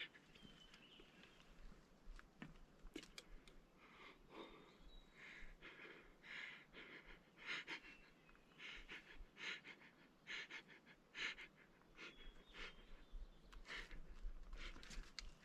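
Faint, quick breathing close to the microphone, in soft puffs every half second to a second.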